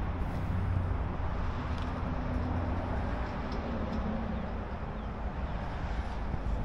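Steady outdoor background noise of distant road traffic, a low rumble, with a faint engine hum through the middle.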